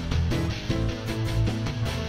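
Closing theme music: a rock track with guitar over a steady beat.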